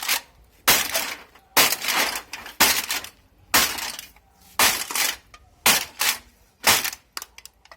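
Aluminium drink cans in a sack being crushed by repeated blows, about one a second, seven in all, each a sharp crunch with a short metallic rattle of cans shifting.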